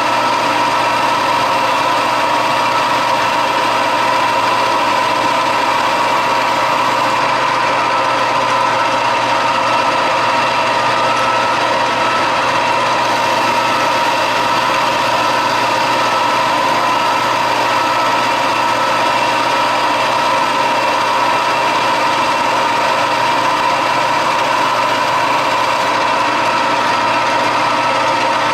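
Metal lathe running steadily with a steady whine, partway through a turning pass that takes about ten thousandths off the workpiece.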